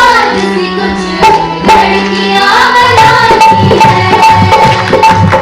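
Song performed live on stage: singing over held low notes, with a steady drum beat coming in about three seconds in.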